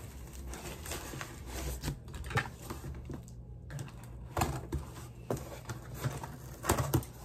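Cardboard shipping box being opened by hand: flaps and packing tape rustling and scraping, with scattered small knocks and clicks.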